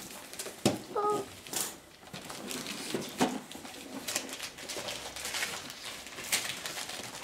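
Gift wrapping paper rustling and tearing in short, irregular bursts as a present is unwrapped, with a brief child's vocal sound about a second in.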